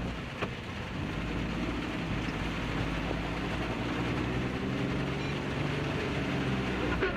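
Suzuki Jimny JB23's small three-cylinder engine pulling under load through deep floodwater, its revs climbing slowly from about a second in, over a steady wash of water and rain noise.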